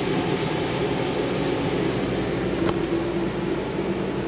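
Steady mechanical hum with a low drone, with one short click about two and a half seconds in.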